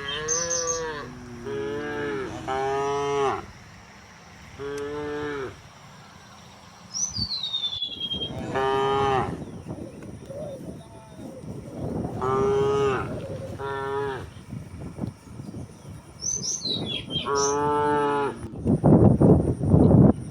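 A herd of cows mooing again and again, about eight separate moos of varying pitch, each lasting about a second, some overlapping. A burst of rough, loud noise comes in near the end.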